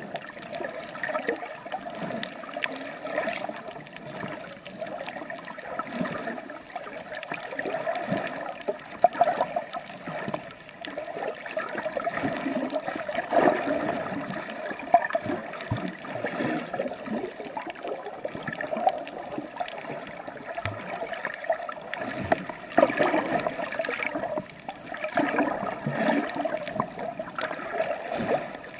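Water gurgling and sloshing around a swimmer, rising and falling unevenly.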